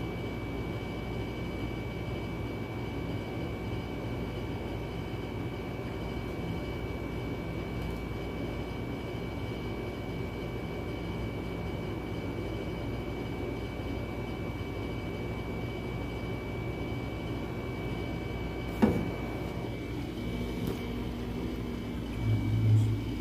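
Steady low room hum with a thin high whine running through it, broken by a single sharp knock about nineteen seconds in. Near the end comes a short burst of low thumps as the camera phone is picked up and handled.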